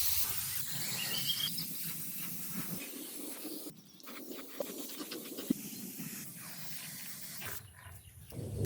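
A loud hissing jet of air or spray, switched off briefly about four seconds in and again near the end.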